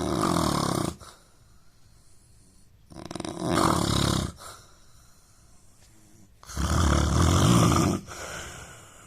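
A man snoring in a regular rhythm: three loud snores about three seconds apart, each lasting a second or so, with quiet stretches between.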